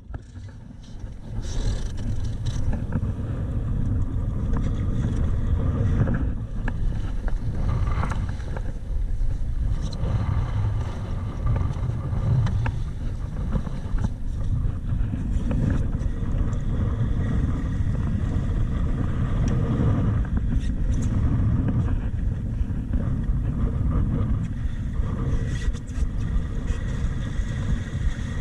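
Strong wind buffeting the microphone on a Laser dinghy sailing in heavy wind: a loud, steady low rumble of wind noise.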